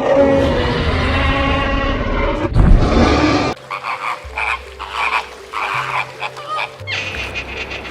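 Animal calls: a loud, rough, noisy call for about three and a half seconds, then a run of short repeated croaking calls, a couple each second, over a low steady tone.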